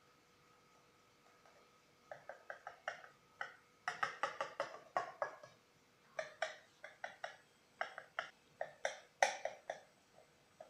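Kitchen knife cutting through a baked semolina cake (basbousa) in a glass dish, making irregular runs of short clicks and scrapes, several a second, as the blade meets the glass. It begins about two seconds in, after a quiet start.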